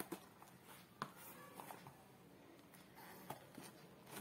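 Faint scratching and a few light clicks of fingers picking at packing tape on a cardboard box.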